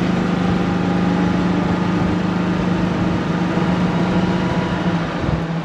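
E-Z-GO Express cart driving along a paved road: a steady drive hum over tyre and wind rumble. The hum dips slightly in pitch near the end.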